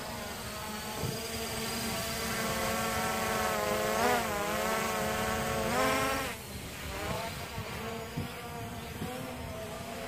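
Hubsan H501S quadcopter's brushless motors and propellers buzzing in flight, the pitch swooping up and down as the throttle changes. The buzz is loudest for a few seconds near the middle and drops off after about six seconds as the drone climbs away.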